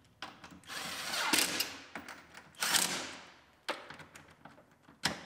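Cordless impact driver running mirror bolts down in a few short bursts, with sharp clicks of the tool near the end.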